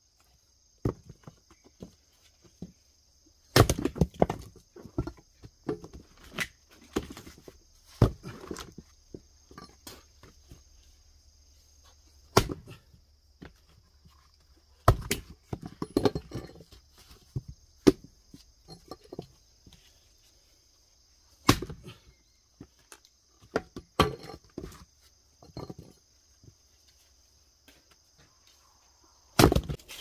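Split firewood pieces clunking against one another as they are handled and dropped onto a pile: irregular sharp wooden knocks, often a few seconds apart, some in quick clusters.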